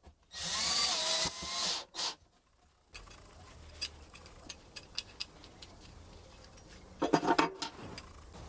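Workshop tool noise: two short bursts of harsh scraping or grinding in the first two seconds, then scattered faint clicks and a brief rattle about seven seconds in.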